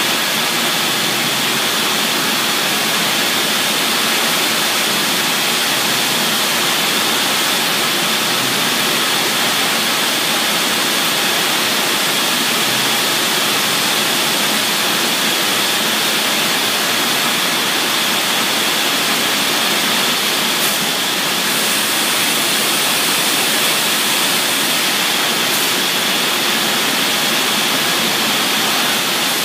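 Routech Accord CNC machining centre running as its router spindle mills a wooden chair leg: a steady rush of noise with a constant high whine.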